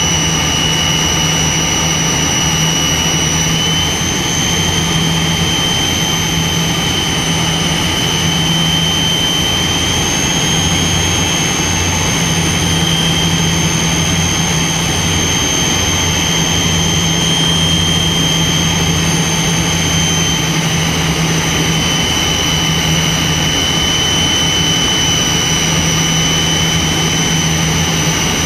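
Cabin noise of a Tupolev Tu-134B-3 airliner in flight: its two rear-mounted Soloviev D-30 turbofans running steadily, with a high whine that shifts slightly in pitch a few times and a low pulsing hum underneath.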